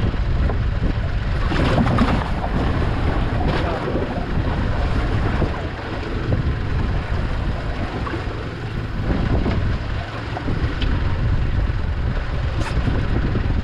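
Wind buffeting the microphone over the steady rush of water and a boat at sea, with a few brief knocks.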